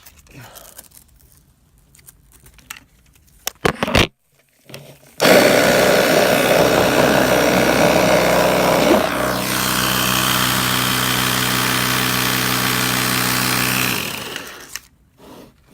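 A few faint handling clicks, then the Ryobi P737 18-volt cordless inflator's compressor starts suddenly and runs loud and steady for about nine seconds. It settles to a slightly quieter, even tone about halfway through, then winds down and stops near the end.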